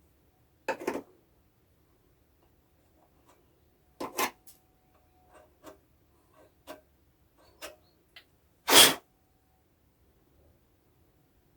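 Scattered short clicks and knocks of small parts and tools being handled, a dozen or so spread out, the loudest about nine seconds in.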